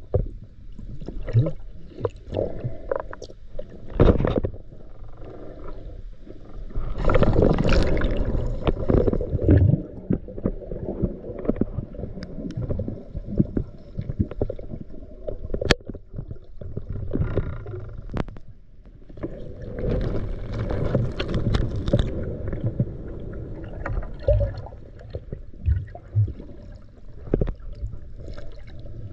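Muffled water sloshing and gurgling, with louder splashing about seven seconds in and again around twenty seconds in.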